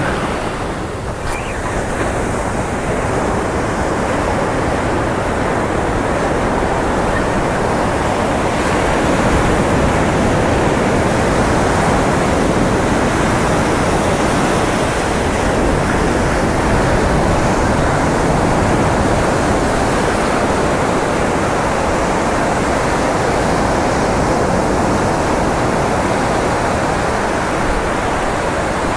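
Ocean surf breaking and washing up a sandy beach: a loud, steady rush of white water.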